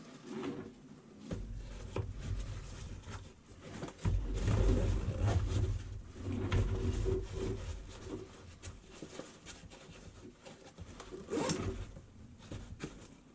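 Handling of a Maxpedition Proteus Versipack nylon waist pack: fabric and webbing straps rustling and rubbing, with scattered clicks and knocks from its hardware against the wooden workbench. The loudest is a sharp click about eleven and a half seconds in.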